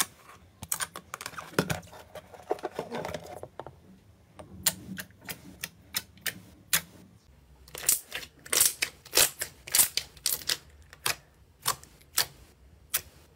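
Fingers poking and pressing into glossy dark green slime, making irregular sharp pops and clicks with soft squelches. The pops come thickest in a quick run a little past the middle.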